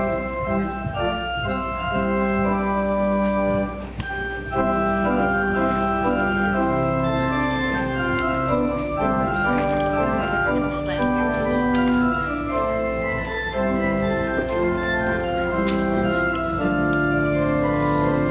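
Organ playing the service prelude: held chords with notes changing every second or two, and a brief dip in loudness about four seconds in.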